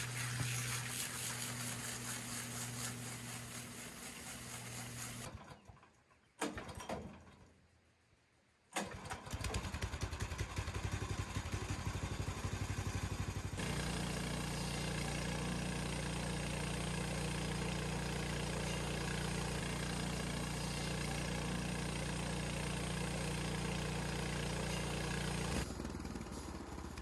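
Harbor Freight portable bandsaw mill's small gasoline engine running. It breaks off for about three seconds after the first five. Then it runs again, steadier and fuller from about the middle, and stops shortly before the end.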